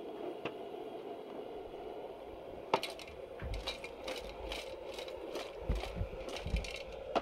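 Steady rush of a propane burner under a large steaming stockpot of seafood boil. From about three seconds in comes a run of clicks, scrapes and rustles with soft thumps as things are handled close by.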